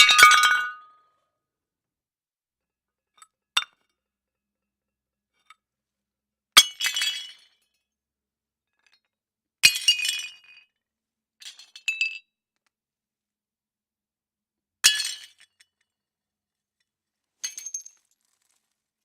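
Plates breaking one at a time: a string of separate sharp crashes a few seconds apart, each followed by a brief jingle of falling shards.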